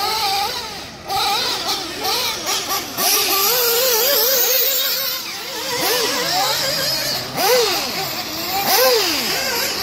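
Two-stroke nitro glow engine of a 1/8-scale RC buggy, an OS Speed Spec 2 fully ported with a tuned pipe, revving hard and backing off again and again as the buggy is driven around the track. The pitch keeps sweeping up and down, with several sharp rise-and-fall sweeps near the end.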